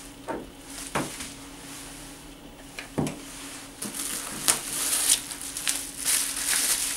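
Hands handling packaging in a cardboard box: a few light knocks in the first three seconds, then the crinkling of plastic bubble wrap as a wrapped charger is lifted out and handled, from about four seconds in.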